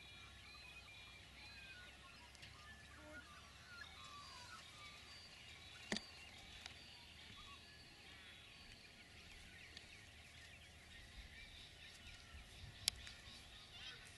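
Faint birds chirping and whistling in the background, with a sharp click about six seconds in and another, louder one near the end.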